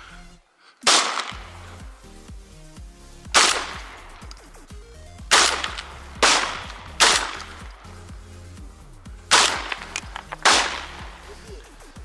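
Shotgun shots at geese, seven in all at uneven intervals, each loud crack trailing off briefly, the first about a second in and the last near the end. Background music with low steady notes runs underneath.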